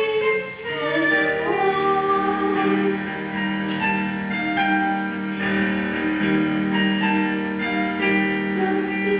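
A female voice singing a melody in long held notes, with piano accompaniment.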